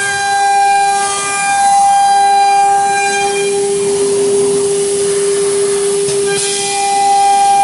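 CNC router spindle running with a steady high whine while its bit engraves a wooden board. The upper part of the whine fades for a few seconds in the middle, then returns.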